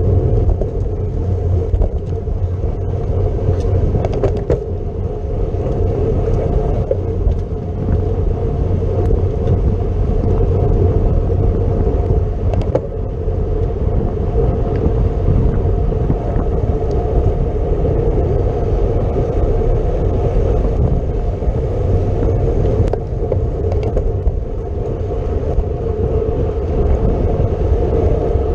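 Steady wind rush on the microphone and road rumble of a racing bicycle riding at speed, with a few faint clicks.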